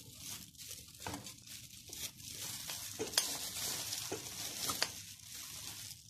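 A steady crackling hiss, like food sizzling, with a few sharp clicks and pops scattered through it.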